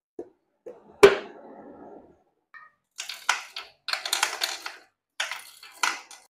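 A sharp metal knock with a short ring as the aluminium scooter-engine crankcase halves are set together, then a loose roller chain rattling and clinking in several bursts as it is drawn through the case.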